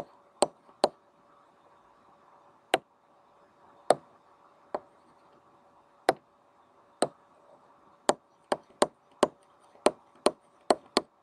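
Stylus clicking on a pen tablet or touchscreen while handwriting: sharp single taps, a few seconds apart at first, then coming faster, two or three a second, in the last few seconds, over a faint steady hum.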